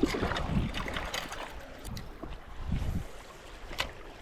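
Kayak handling sounds: low bumps and knocks against the hull, a few sharp clicks, with wind on the microphone.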